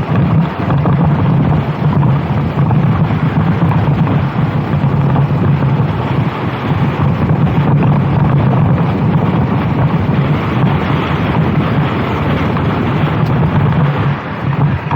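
Racing kart engine running hard at speed, a steady drone with small dips in pitch, with wind buffeting the microphone.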